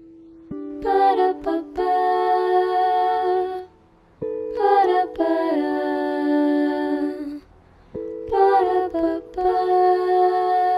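Wordless sung vocal phrases, three in a row of about three seconds each, with sliding pitch, over sustained electric guitar chords.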